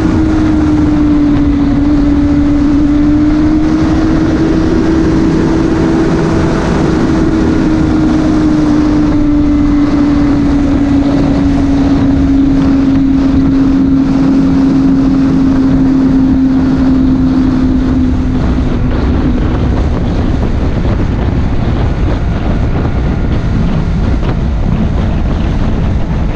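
Honda CBR600RR inline-four engine running at a steady speed under heavy wind noise on the microphone. Its note eases slightly lower and fades away about twenty seconds in, leaving the wind rush.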